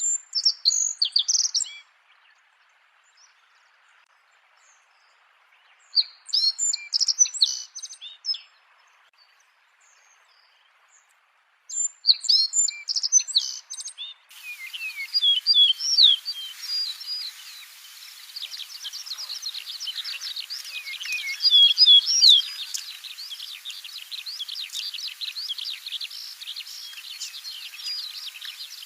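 Songbird singing in three short bursts of quick, high chirping notes with silences between them, then, after an abrupt cut about halfway through, a different recording of continuous dense twittering over a steady hiss.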